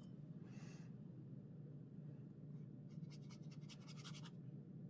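Faint scratchy strokes of a paintbrush on watercolour paper: one soft stroke about half a second in, then a quick run of short scratches about three seconds in, over a low steady hum.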